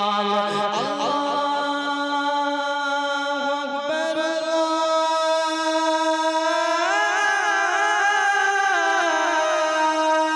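A naat sung without instruments: one voice holds long, wavering, wordless notes, its pitch stepping up about four seconds in.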